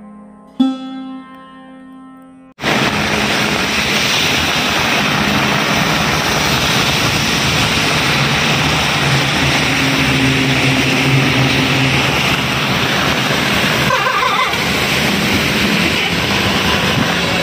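A plucked sitar note rings and fades, then about two and a half seconds in the sound cuts to heavy rain pouring steadily onto a paved road, with a faint low vehicle hum underneath.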